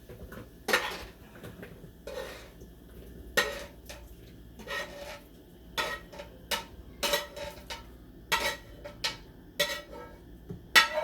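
A metal utensil knocking and scraping against a cooking pan, about a dozen irregular clanks with a short ring, as cooked chicken pieces are scooped out into a bowl.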